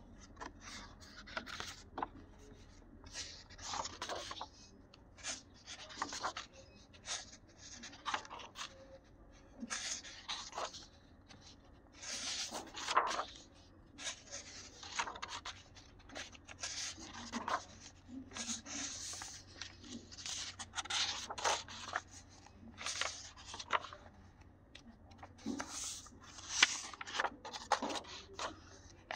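Paper rustling and rubbing as the pages of a spiral-bound sketchbook are turned and handled by hand, in irregular rustles a second or so apart, with a few louder page flaps.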